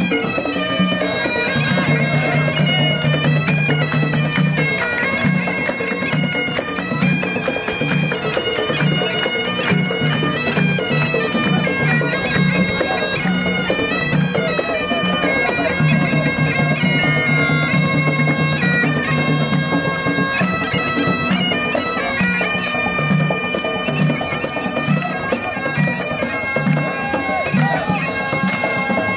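A band of Highland bagpipes playing a tune: a steady drone under a continuously changing chanter melody.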